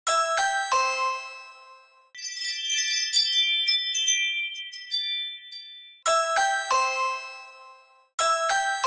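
Ring doorbell chime tones: a three-note chime that rings and fades, then a wind-chime tinkling, then the three-note chime again about six seconds in and once more near the end.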